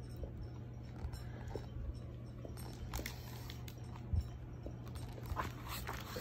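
Soft rustles and knocks of a hardcover picture book being held up and handled, with a low thump about four seconds in, over a steady low hum.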